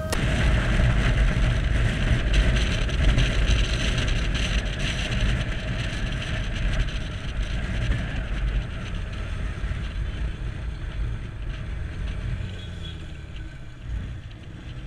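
Motorcycle riding at road speed, its engine and road noise under a heavy wind rumble on the microphone, easing gradually quieter.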